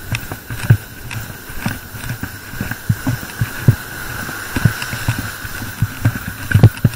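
Footsteps on beach sand, thudding irregularly about once or twice a second, over the wash of surf, with a steady faint high whine throughout.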